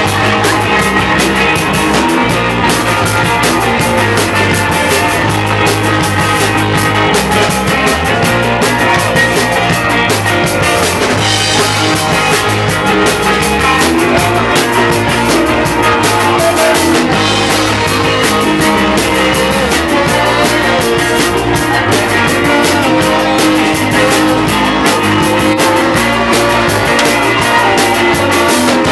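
A rock band playing a song at full volume, with electric guitar, bass and drums.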